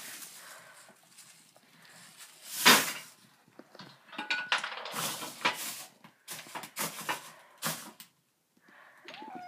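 Close rubbing and knocking on a phone microphone as the cat's fur brushes against it: one loud knock about a quarter of the way in, then a few seconds of scratchy rubbing and clicks. A cat's meow starts right at the end.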